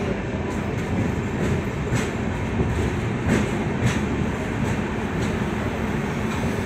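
A train's steady wheel-and-rail rumble heard from aboard as it runs slowly into a station, with irregular clacks of the wheels over rail joints, the loudest about two and four seconds in.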